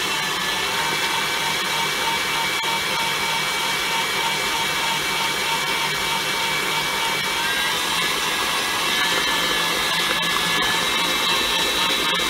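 Electric stand mixer running steadily, beating a thick mashed sweet potato, butter and sugar batter in a glass bowl. Its motor whine shifts a little in pitch about halfway through.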